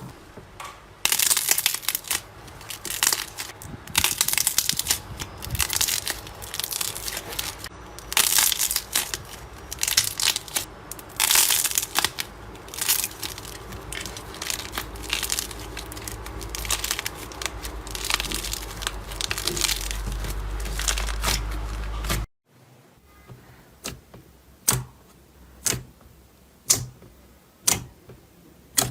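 Slime being squeezed and worked by hand, a dense run of crackling, crunching squishes. After a sudden cut near the end, sharp separate clicks come about one a second.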